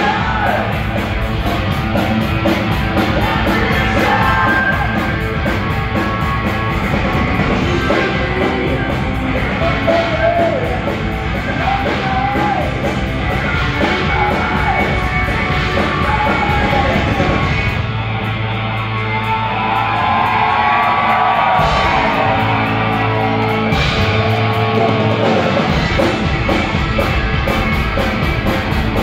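Live heavy metal band playing: distorted electric guitar, bass and drums with a singer. Past the middle the cymbals drop out for a few seconds while a guitar lead line stands out, then the full band comes back in.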